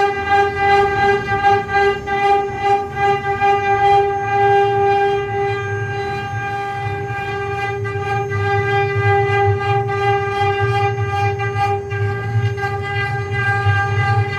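Mini CNC wood-engraving router running: the spindle gives a steady whine over a rough rumble, with faint ticks as the bit cuts.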